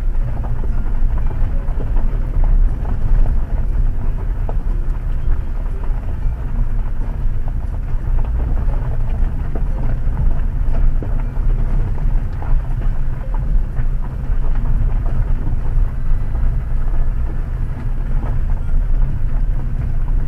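2018 Jeep Compass Trailhawk rolling slowly up a loose gravel road, heard from inside the cabin: a steady low rumble from the tyres and body, with constant small crunches and ticks of gravel under the tyres.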